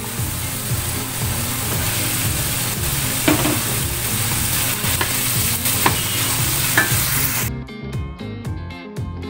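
Diced jicama and carrots sizzling in hot oil in a steel wok, a steady loud hiss with a few light knocks against the pan. The sizzling cuts off suddenly about seven and a half seconds in, leaving background music.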